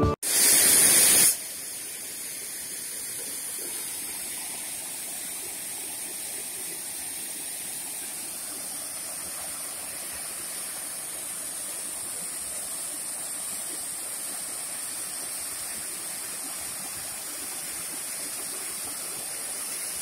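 A mountain waterfall and its cascading stream rushing steadily. A brief, louder rush of noise in the first second gives way to the even sound of falling water.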